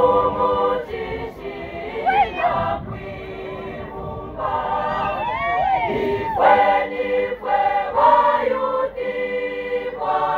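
Church youth choir singing, several voices together holding notes and moving through phrases, with a few sliding vocal lines over the top.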